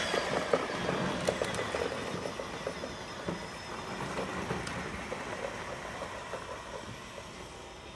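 Battery-powered ride-on toy car driving away over grass, its motor and plastic wheels making a rough rolling noise with small clicks and rattles that fades as it moves off.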